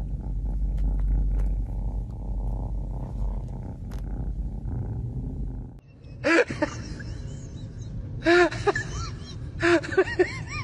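Kitten purring, a steady pulsing low rumble, with a car's low cabin rumble underneath. About six seconds in it cuts to a few short groups of high chirpy calls or tones that rise and fall in pitch.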